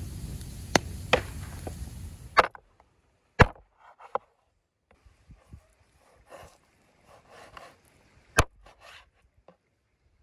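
A wood fire crackling with a steady rushing noise and a few sharp pops for about two and a half seconds. Then a heavy curved cleaver chopping through a rack of lamb on a wooden board: two loud chops about five seconds apart, with lighter knocks and the blade scraping the meat between them.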